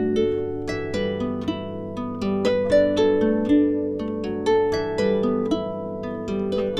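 Instrumental background music: a melody of plucked string notes, about two or three a second, each note ringing on.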